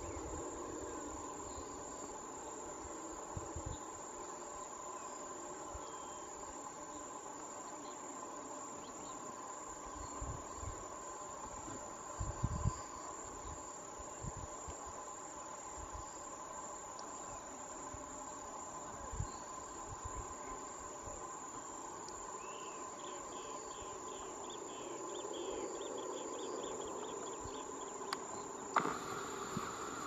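Steady chorus of insects trilling in grassland, a continuous drone. A few soft low thumps come and go, and a quick run of chirps is heard about three quarters of the way through.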